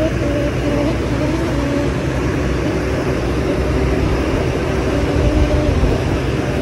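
A Tri Putra Jaya bus's basuri musical horn playing a tune in stepped notes, strong in the first second and fainter after. Under it, a steady low rumble of wind and road noise from the motorbike riding behind.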